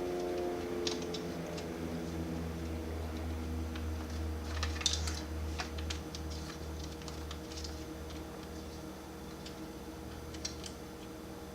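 Small plastic and metal clicks and taps from handling laptop parts and a small screwdriver during a CPU fan swap, loosest at first and clustering in a quick run about halfway through, over a steady low hum.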